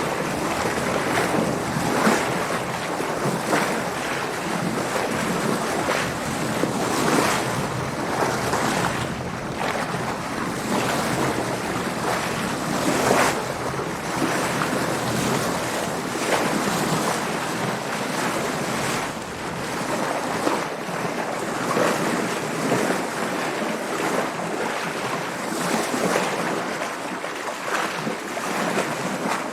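Water splashing and sloshing against a sailing boat's hull in waves, with wind: a steady wash broken by irregular splashes every second or two.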